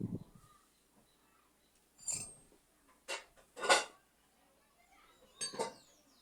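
Hand tools and steel parts clinking and clanking against a car's front suspension while a shock absorber mounting pin is worked loose: a dull knock at the start, then four separate metallic clanks, the loudest about halfway.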